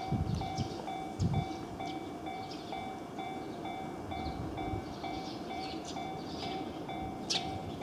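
Japanese level-crossing warning bell ringing, its electronic ding repeating about three times a second. A passing train's rumble and scattered sharp wheel clicks run under it, with one louder clack near the end.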